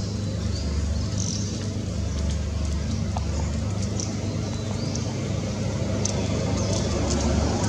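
Steady low rumble of background noise with faint, short high chirps now and then.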